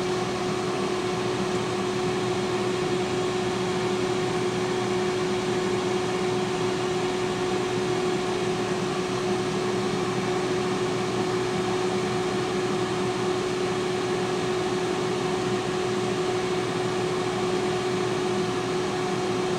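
T-fal air fryer running mid-cook, its fan giving a steady whir with a constant hum tone.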